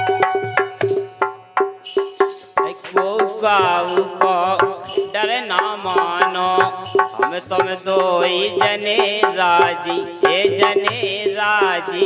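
Indian folk music: a harmonium with a steady drone, regular hand-drum strokes and a rattle, and a man's singing voice coming in about three seconds in.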